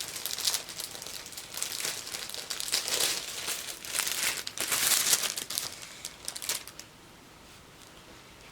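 Paper crinkling and tearing as a present is unwrapped, in a run of rustling bursts that stops about seven seconds in.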